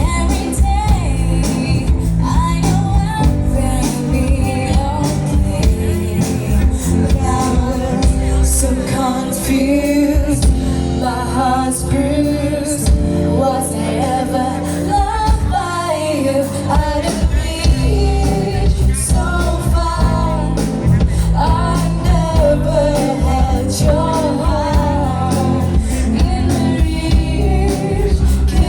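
Live band playing a pop song with a woman singing lead over bass and drums.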